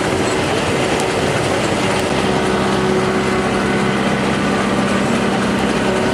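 Rumely 36-120 twin-cylinder steam traction engine running a sawmill, with the steady clatter of machinery at work. A steady hum from the mill grows stronger about two seconds in.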